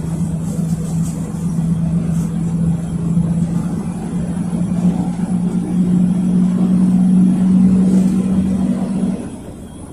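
The PAZ 32054 bus's ZMZ-5234 V8 petrol engine heard from inside the bus, pulling with a steady hum that rises slowly in pitch and grows louder as the bus gathers speed, then falls away sharply near the end.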